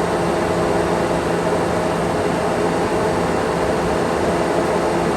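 Newman LB-1872 planer machinery running steadily: a loud, even hiss with a low hum.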